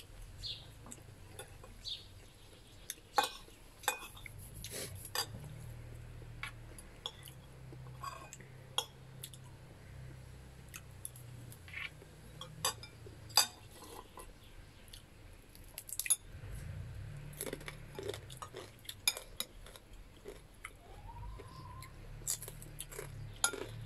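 Spoon and fork clinking and scraping on ceramic plates in a string of sharp, irregular clicks, with chewing of crispy fried fish, over a low steady hum.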